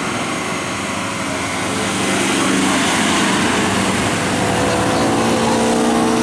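Bus engine running as it passes, a little louder from about two seconds in, over a steady hiss of heavy rain.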